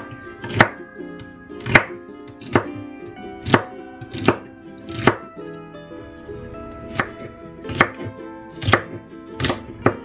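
Kitchen knife chopping celery stalks on a wooden cutting board: a sharp knock about once a second, with a short pause around the middle.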